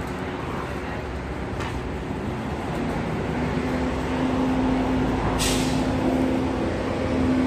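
A large vehicle's engine running with a steady low hum that grows gradually louder. A short hiss of released air comes about five seconds in.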